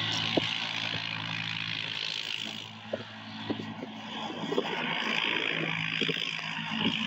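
Off-road vehicle engine running while driving through snow, with a rushing hiss over it. It eases off about three seconds in and picks up again around five seconds, with a few scattered knocks.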